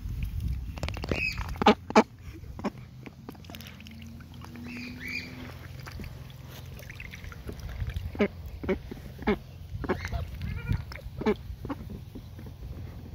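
White domestic ducks splashing and dabbling in a shallow plastic paddling pool, with many sharp splashes and two short quacks, about a second in and about five seconds in.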